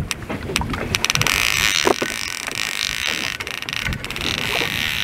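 Steady rushing noise of a boat on open water, with wind on the microphone and scattered sharp clicks and knocks.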